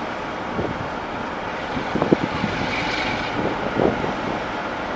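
Brush Class 47 diesel-electric locomotive running, with its Sulzer twelve-cylinder engine giving a steady rumble under the station noise. A few knocks come about two seconds in, and a brief high squeal comes around three seconds.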